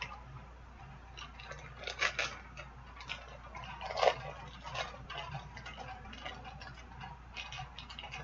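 Quiet clicks and crinkles of a small foil blind-bag packet and the plastic figure pieces inside being handled, coming about once a second, with the loudest click about four seconds in.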